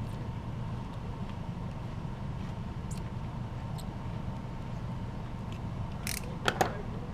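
Steady low background hum, with two or three sharp clicks about six seconds in from hand work prying at a truck emblem.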